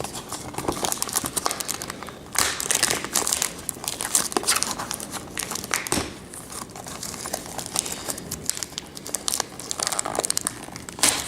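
Plastic wrapping on a 2018 Topps baseball card blaster box crinkling and tearing as the box is unwrapped: irregular crackling throughout, louder about two and a half seconds in and again near the end.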